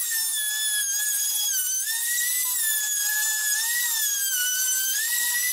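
Compact handheld router running at high speed, freehand-cutting tie-joint pockets into a 3/4-inch melamine countertop. Its high whine dips in pitch each time the bit loads up in the cut and recovers as it eases off, several times over.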